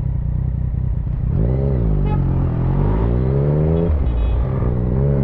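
Motorcycle engine under way over a steady low rumble. Its pitch dips and then climbs as it speeds up, drops briefly near the end, and climbs again.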